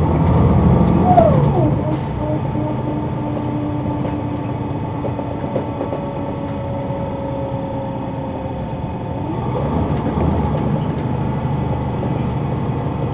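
Inside the cabin of a Neoplan AN459 articulated bus, heard from the back seats: the diesel engine and automatic transmission running under way. Their whine falls in pitch about a second in, holds steady for several seconds, then rises again about nine seconds in as the bus pulls harder.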